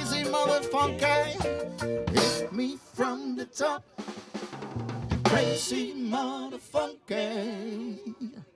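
Live band playing: drum kit with snare and bass-drum hits, electric guitars, and a male singer at the microphone.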